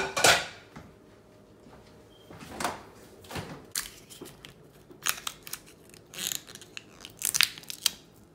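A sharp knock, then uneven scratching, crinkling and tearing bursts as a foil seal is picked and peeled off the mouth of a plastic juice bottle with the fingers.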